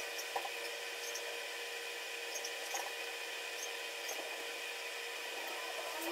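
Steady background hiss with faint even hum tones and a few small ticks: room noise picked up by the camera's microphone, with no barking.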